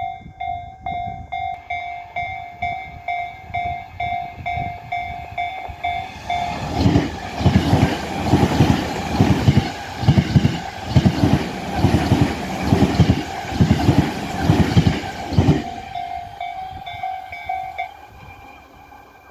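A Japanese railway level-crossing alarm ringing its electronic bell at about two rings a second. About six seconds in, a Tobu Isesaki Line electric train passes over the crossing, its wheels clattering rhythmically over the rail joints for about nine seconds. The bell is heard again after the train and stops near the end.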